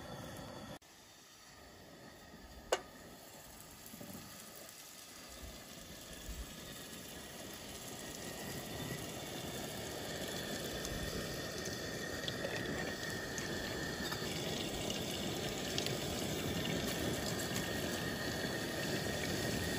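Oil heating in a pot on a camp stove, a sizzling hiss that grows steadily louder, with one sharp click about three seconds in.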